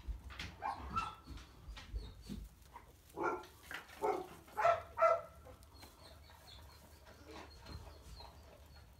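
Two 22-day-old puppies making short whimpering calls, a run of them that is loudest about four to five seconds in and then dies away, with straw rustling under them.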